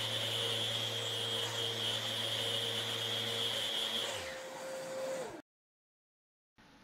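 Electric orbital sander with dust extraction running steadily while dry-sanding a plexiglass panel, then winding down about four seconds in and going silent about a second later.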